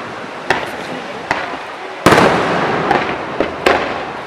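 Aerial fireworks going off: a string of about six sharp bangs, the loudest about two seconds in, each trailing away in a fading rumble.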